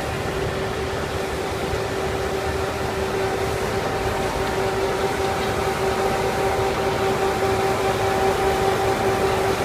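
Stone crusher machine running: a steady mechanical noise with a constant hum, slowly growing louder.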